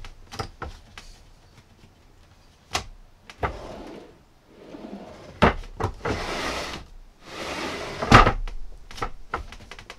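Drawers under a bed platform being pulled out and pushed shut on metal drawer slides, the runners rolling with a rushing sound several times. Sharp knocks and clicks come as the drawer fronts close against the frame and the latches catch, the loudest about 8 seconds in.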